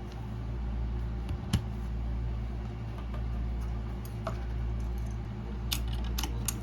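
Scattered light clicks of a mechanical keyboard being handled, over a steady low hum, with a few quick clicks near the end.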